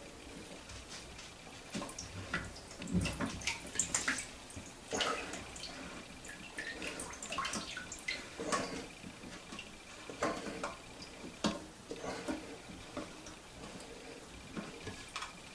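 Water dripping and splashing in a toilet tank, with irregular small clicks and knocks as the tank's parts are handled.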